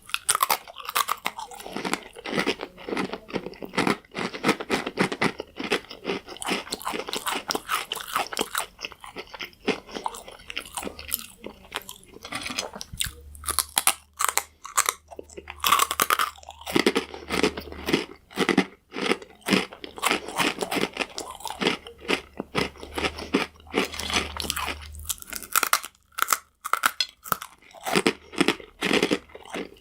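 Crunchy croutons being bitten and chewed close to the microphone: a continuous run of loud, irregular crunches with brief pauses between mouthfuls.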